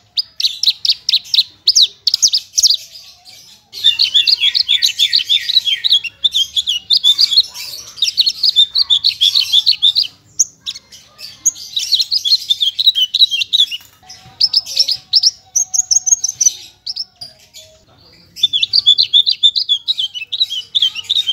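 Javan bush lark (branjangan, parva race) singing a full, varied song: fast runs of high, rapidly repeated notes in phrases a few seconds long, broken by short pauses, with a run of falling sweeps about four seconds in.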